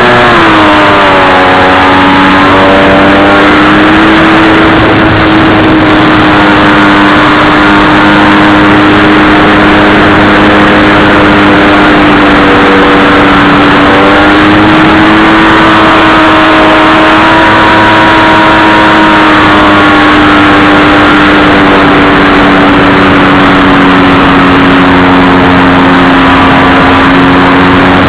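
A radio-controlled model plane's motor and propeller running steadily in flight, a loud buzzing drone. Its pitch swings up briefly at the start, then wavers slightly with the throttle.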